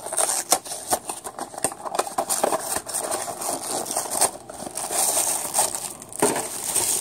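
Packaging handled by hand as a small diecast-car blind box is opened: plastic and cardboard crinkling and crackling, with many small clicks and rustles.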